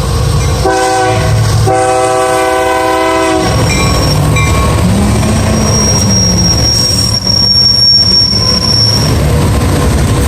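Freight train's EMD diesel locomotives working hard under load on an uphill grade, their engines running with a deep steady rumble. The locomotive's multi-chime air horn sounds a short blast, then a longer one lasting about two seconds, for the grade crossing. From about five to nine seconds in, a thin steady high squeal rides over the engines.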